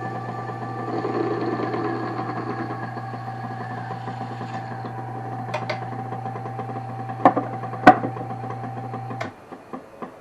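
Wood lathe running with a steady motor hum while a turned wooden peg is parted off, a few sharp clicks and knocks in the second half, the loudest near eight seconds. The motor shuts off about nine seconds in.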